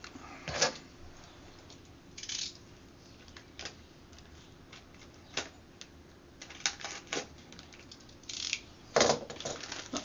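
Packaging and parts being handled while unpacking: scattered clicks, knocks and short rustles, with two louder knocks about half a second in and about nine seconds in.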